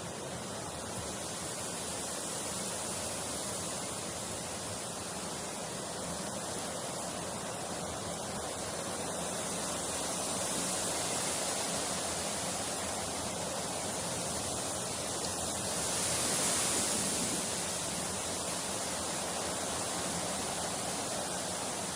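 Steady rushing hiss with no distinct events, swelling slightly a little before the middle and again about three-quarters of the way through.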